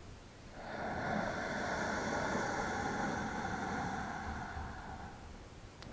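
Ujjayi ("ocean") breath: one long, steady inhale through the sealed mouth's nose with a slight constriction at the back of the throat, giving a soft rushing wave of breath. It starts about half a second in and fades out near the end.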